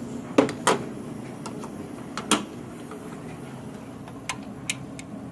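A few sharp, separate metal clicks and clinks of hand tools being worked on an engine bolt, the two loudest close together about half a second in, over a steady low hum.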